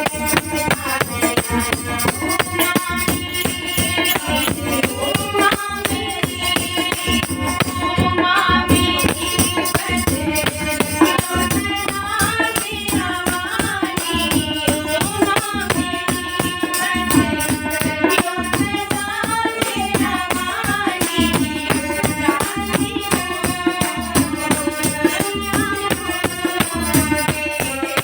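Devotional Hindi bhajan to the Mother goddess: a melodic singing voice over a steady rhythm of hand percussion with rattles.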